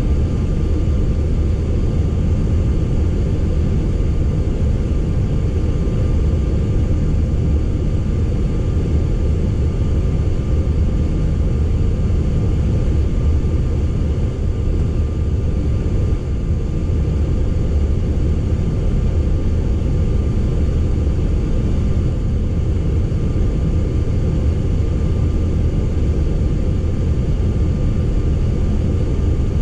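Steady low rumble of a Boeing 737-800 on the ground, heard inside its flight deck, with a faint steady whine riding above it.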